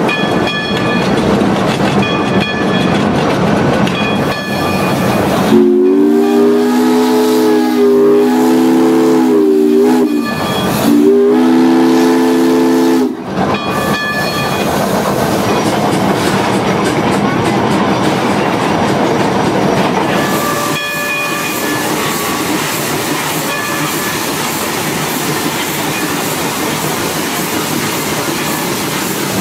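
Steam whistle of a Climax geared steam locomotive blown twice, first a long blast and then a shorter one, each a chord of several notes at once. Around it is the steady running noise of the locomotive heard from the cab.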